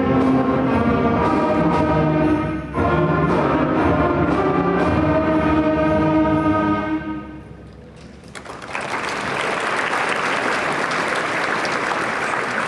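Sixth-grade school concert band, trumpets among the brass, playing the closing phrases of a piece. Its final chord dies away about seven seconds in. After a short pause, audience applause starts and carries on.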